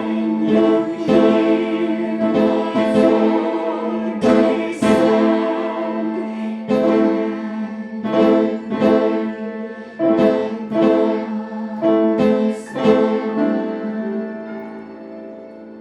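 Piano playing a run of struck chords and notes that ring and decay. The sound dies away over the last couple of seconds as the final notes fade.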